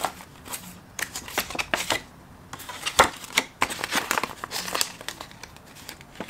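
Paper banknotes rustling and crinkling in short flurries as $20 bills are handled and slid into a laminated cash envelope, with quiet gaps between and one sharp snap about three seconds in.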